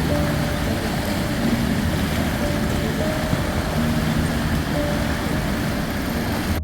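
Steady rushing seaside noise of wind and surf, with faint background music holding a few soft notes underneath.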